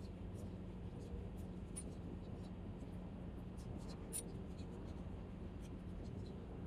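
Fishing line and spinning reel on a feeder rod being handled: faint scratchy rubbing with irregular light clicks, over a steady low hum.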